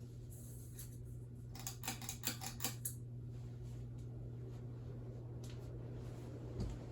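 Hunter Low Profile ceiling fan's 177 mm motor running on high speed with a steady low hum. A quick run of sharp clicks comes about two seconds in, and a soft thump near the end.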